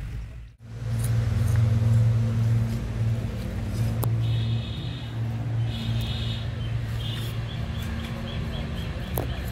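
A steady low mechanical hum, like a motor running, with a small bird chirping in quick repeated notes from about four seconds in.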